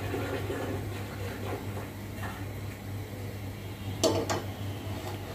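Gas burner running under a frying pan of mustard oil that is still heating, not yet sizzling: a steady low hum. A brief double knock comes about four seconds in.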